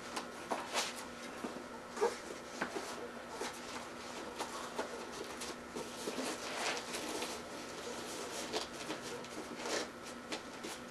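Rustling and handling of a padded fabric cover being wrapped around a bicycle crankset and chain ring, with scattered light knocks of the metal parts.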